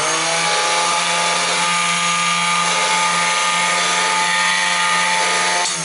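Electric motor and spindle of an ElmaGrav pantograph engraving machine running steadily: a hum with a higher whine over a hiss, with a bit of vibration. The pitch climbs a little in the first half second, and the sound eases off just before the end.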